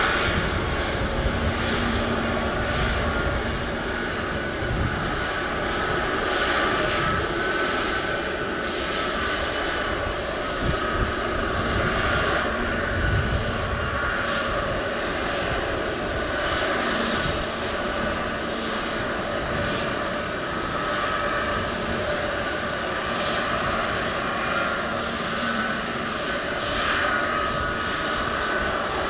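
Turbofan engines of a twin-engine jet airliner at takeoff thrust during the takeoff roll: a steady, loud jet noise with a high whining tone, as the plane accelerates away down the runway.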